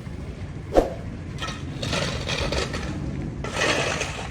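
A single sharp knock, then two stretches of rough scraping.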